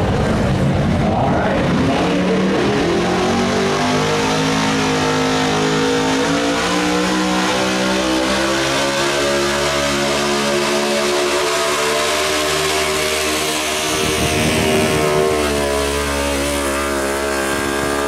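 Pulling truck's engine at full throttle, hauling a weight-transfer sled over dirt: the revs climb over the first few seconds as it launches, then hold high and steady, with a brief wobble about two-thirds through.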